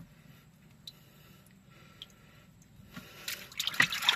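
Soapy water in a basin splashing and sloshing as a hand scrubs a metal rocker arm shaft assembly through it. The first three seconds hold only small drips and clicks; about three seconds in the splashing turns loud.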